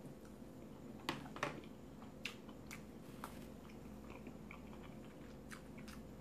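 Faint chewing of a mouthful of omelette: scattered soft mouth clicks, a few sharper ones in the first two or three seconds, then quieter.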